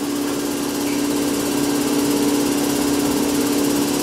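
A steady machine hum at one constant pitch, growing slightly louder about a second in.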